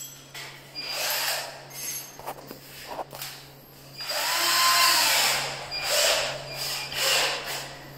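Cordless drill run in several short trigger bursts, with one longer spin-up and wind-down about four seconds in, while a bit is set in its chuck.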